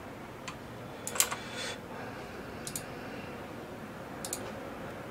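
A few scattered computer keyboard and mouse clicks, with a quick cluster about a second in, over a faint steady room hiss.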